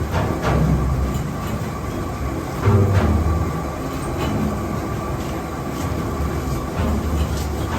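Old grist mill running: a steady mechanical rumble with a faint steady whine, and heavier low thumps and knocks every few seconds.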